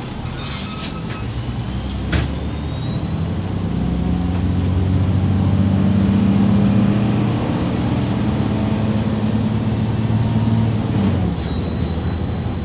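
MAZ 203 city bus heard from inside. A short hiss of compressed air comes at the start and a knock about two seconds in; then the engine pulls away with a whine that rises in pitch as the bus gathers speed, dropping at a gear change near the end.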